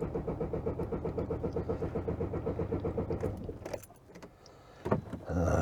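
Van engine running with an uneven, pulsing beat, which the driver reckons is a misfire whose cause he doesn't know. The engine stops about three and a half seconds in, a click follows, and a louder mechanical sound starts just before the end.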